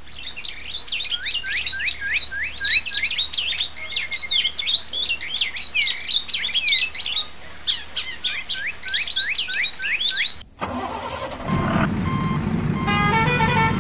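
Birds chirping rapidly for about ten seconds. Then the sound cuts off suddenly and gives way to a low, engine-like rumble, with a run of stepped electronic beeping tones near the end.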